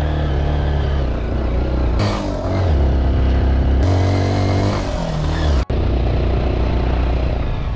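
Honda XR190L motorcycle's single-cylinder engine running on the move, its pitch rising and falling with speed. The sound changes abruptly about two and four seconds in and drops out for an instant about two-thirds of the way through.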